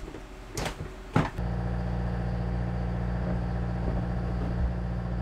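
Two knocks in the first second or so. Then a steady, low engine drone starts abruptly and holds an even pitch, the running noise of machinery in a boatyard.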